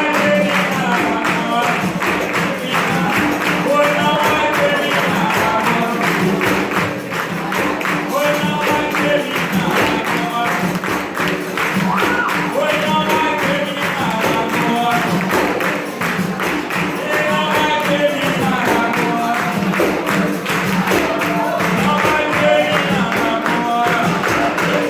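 Capoeira roda song: voices singing call-and-response phrases over the berimbau and the jingling pandeiro, with a steady, even percussion beat.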